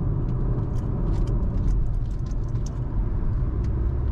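Steady low road rumble of a moving car, heard from inside the cabin, with faint light rattles and ticks throughout.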